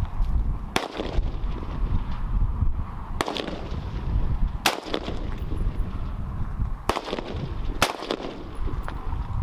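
Five single rifle shots at irregular intervals, each a sharp crack, over a steady low rumble of wind on the microphone.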